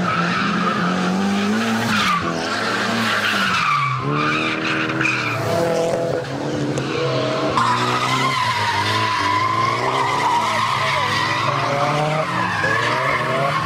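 Drift car sliding through corners, its engine revving up and falling back again and again while the tyres squeal.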